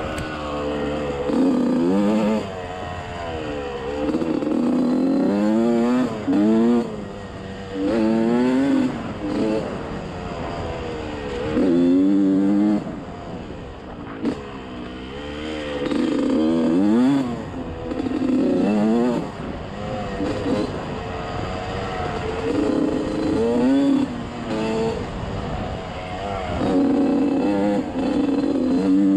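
Small off-road vehicle engine being ridden along a dirt trail, the throttle opened and closed again and again so the engine note climbs and falls every second or two.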